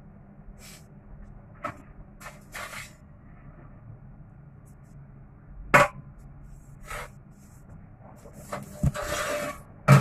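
Scattered short knocks and clicks at irregular times over a low steady hum. The loudest knock comes about six seconds in, and a brief rustling hiss comes near the end.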